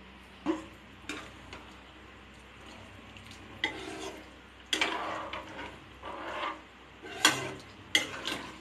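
A spoon stirring the soup in a cooking pot, scraping and clinking against the pot at irregular moments.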